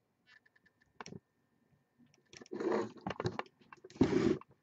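Computer mouse and keyboard clicks with two short rustling scrapes, the louder one near the end, as entries in a spreadsheet are selected and scrolled.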